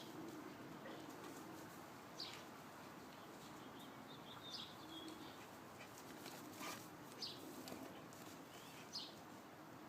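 A small bird chirping now and then in the background: short, high chirps every second or two over a faint, quiet backdrop.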